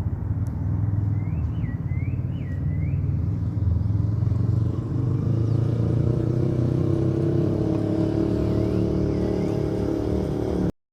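A vehicle engine running with a steady low rumble, its pitch rising gradually through the second half. A few short chirps sound over it, a run of them early on and two more near the end, and everything cuts off abruptly just before the end.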